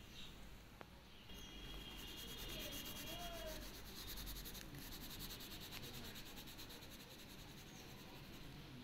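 Pastel crayon rubbed back and forth on paper, a faint dry scratching of quick strokes that picks up about a second and a half in.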